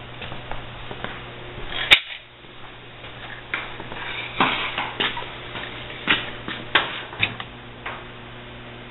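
Scattered light clicks and knocks over a steady low electrical hum, with one sharp click about two seconds in.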